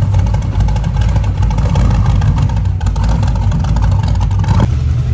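Car engine running loud at low revs, a deep exhaust note with a fast pulsing beat. The sound changes abruptly about four and a half seconds in.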